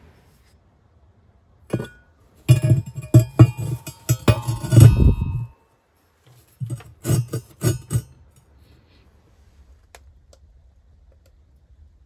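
Cast-iron stove grate clanking against the brick of a firebox as it is set into place: one knock about two seconds in, a run of ringing clanks and scrapes over the next three seconds, then a shorter run of clanks.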